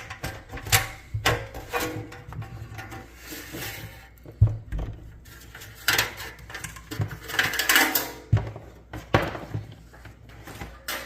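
Handling noise from an opened oscilloscope being moved about on a bench: irregular knocks, clicks and short scrapes, with a few sharper knocks along the way.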